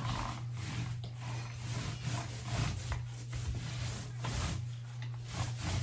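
Paint roller rolling back and forth on a wall, a repeated swishing rub about twice a second, over a steady low hum.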